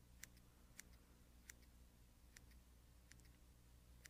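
Small fly-tying scissors giving about six faint, sharp snips at an irregular pace as they trim a poly macrame yarn streamer wing to shape. A faint steady low hum lies underneath.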